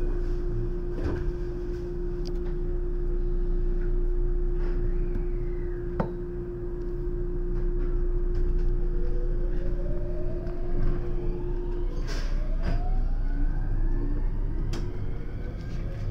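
JR West 521 series electric train heard from the driving cab as it pulls away from a station stop. A steady hum runs until about twelve seconds in; from about halfway through, the VVVF inverter and traction motors whine in several tones that rise in pitch as the train speeds up. A single click comes about six seconds in.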